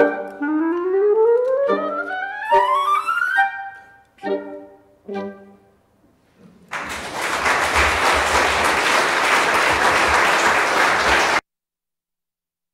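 Wind quintet of flute, oboe, clarinet, horn and bassoon finishing a piece: a long rising glissando, then two short staccato chords to close. After a brief pause, audience applause starts about seven seconds in and cuts off suddenly.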